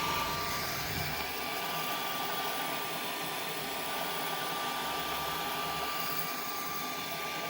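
Metal engraving machine running steadily: an even whirring hiss with a constant high-pitched whine over it.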